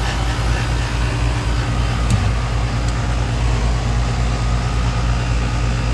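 Heat pump outdoor unit running steadily under power, with a low compressor hum and the rush of the condenser fan. It runs with a normal amp draw, which points to a faulty relay in the Generac generator's load-control box rather than the unit itself. There is a small tick about two seconds in.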